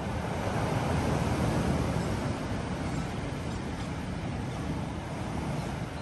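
Sea surf breaking and washing up a stone slipway: a continuous rushing wash with a heavy low rumble, swelling in the first couple of seconds and then easing a little.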